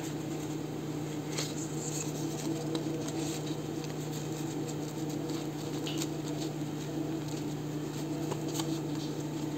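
Paper being handled and worked by hand: faint, scattered rustles and light crinkles, over a steady low hum.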